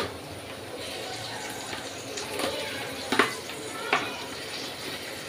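Raw diced chicken dropped into a pan of frying onions, the pan sizzling steadily, with a few short knocks from the box and pan about halfway through and near the end.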